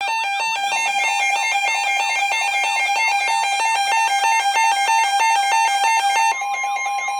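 Emergency Alert System attention signal: a loud two-tone alarm whose two tones alternate back and forth about twice a second.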